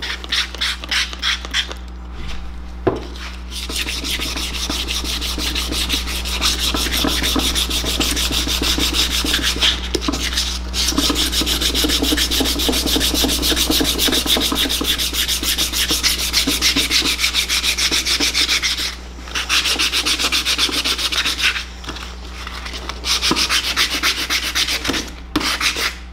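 150-grit wet/dry sandpaper rubbed by hand over a water-sprayed aluminium Honda CBX engine cover: a continuous rapid back-and-forth rasping that pauses briefly a few times near the end. This is wet-sanding corroded aluminium smooth before polishing.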